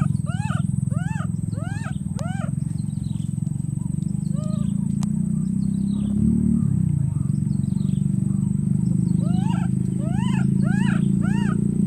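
Baby macaque crying: a run of short high cries, each rising then falling in pitch, about two or three a second. They thin out after a couple of seconds and come back in a steady run from about nine seconds in. A loud, steady low rumble runs underneath throughout.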